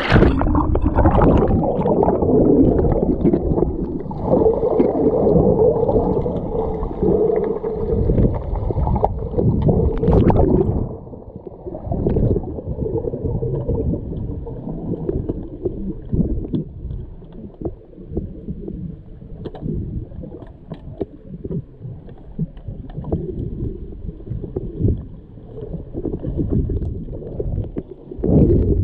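Muffled churning and gurgling of pool water, with scattered short knocks, as players in an underwater hockey game move through the water. About eleven seconds in, the sound turns duller and quieter.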